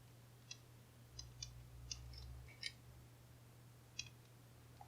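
Faint, irregular clicks from the discs of a stainless steel disc detainer padlock as they are turned with a pick, about eight spread over the few seconds. The lock is gritty inside.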